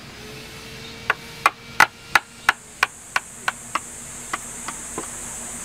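A mallet striking a chisel as a wooden bowl is hollowed out: a quick, even run of about a dozen sharp taps, roughly three a second, that fade away toward the end. A steady high hiss comes in underneath after about two seconds.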